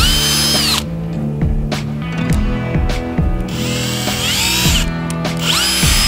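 Cordless drill running in three short bursts, its motor whine rising in pitch as it spins up each time: the first right at the start, one about halfway through and one near the end.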